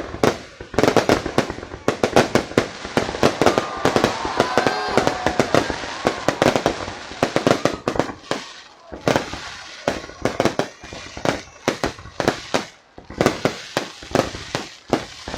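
Fireworks display going off: a dense, rapid barrage of bangs and crackles for the first half, then a brief lull and sparser single bangs.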